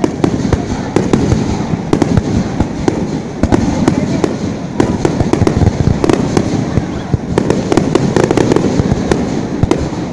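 Aerial fireworks going off in a dense, continuous barrage: many sharp bangs and crackles a second over a loud low rumble.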